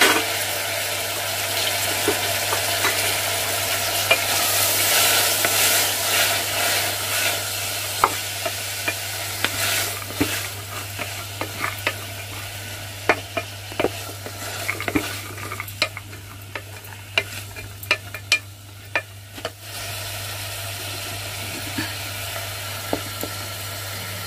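Chopped vegetables (onion, peas, beans, kohlrabi, carrot and potatoes just lifted from water) sizzling in hot oil in a pan, loudest over the first several seconds. Through the middle a spoon stirs them, with many sharp clicks and scrapes against the pan, and the sizzle slowly dies down.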